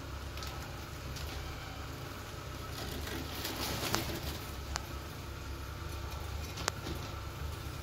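Small hand scoop working through clumping cat litter and tipping clumps into a plastic bag: the bag rustles, the litter grains shift and the scoop clicks sharply a few times, over a steady low hum.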